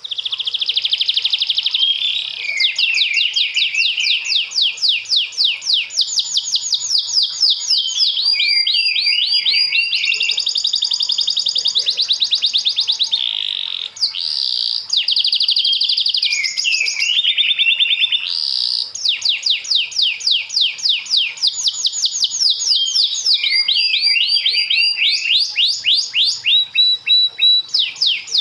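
Domestic canary singing a long, continuous song made of rapid trills: fast runs of repeated notes that switch from one phrase to the next, some high, some lower. There is a brief break about halfway through.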